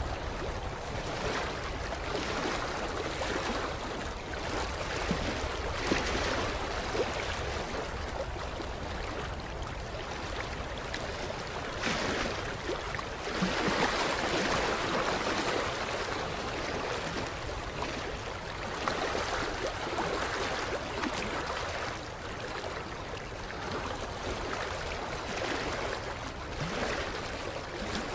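Small waves lapping against a creek shoreline, a steady wash of water that swells and ebbs every few seconds with little splashes.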